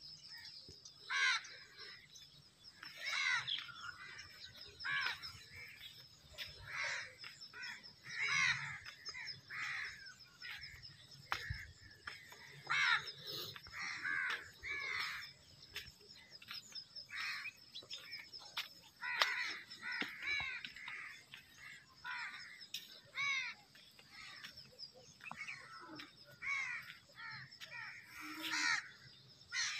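Many birds calling over and over, a short call every second or so, over a steady high-pitched ring.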